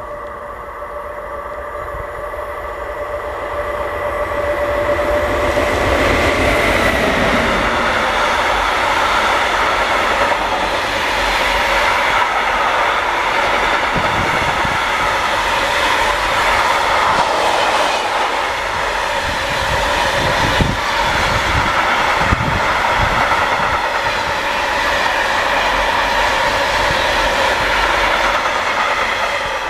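A freight train hauled by a Siemens Vectron electric locomotive approaches with a steady whine that grows louder over the first six seconds. Its heavy container wagons then roll past with a steady rush of wheels on rail and a few sharp clicks.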